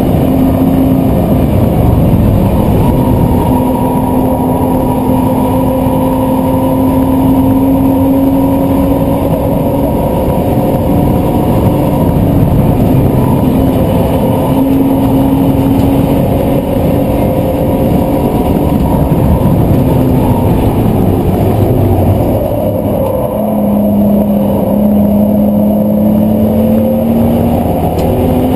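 BMW Z4's engine running hard at speed, its note held fairly steady for a long stretch. Near the end the pitch drops, then climbs again.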